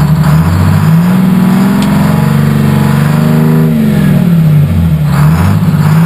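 Supercharged Detroit Diesel two-stroke engine in a 1959 GMC truck, revved in neutral with the Jake brake switched on. The revs climb within the first second and are held high, fall away about four seconds in as the Jake brake works on the closed throttle, then climb again near the end.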